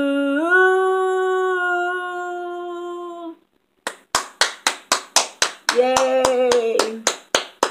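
A woman's unaccompanied voice holds the last sung note of a song for about three seconds and stops. After a short pause she claps her hands steadily, about four claps a second, with a brief vocal sound from her partway through the clapping.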